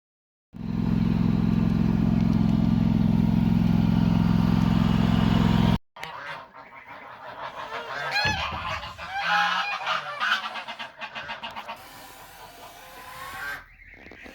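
A loud, steady low hum that cuts off abruptly about six seconds in, followed by geese honking in a run of repeated calls that fade out near the end.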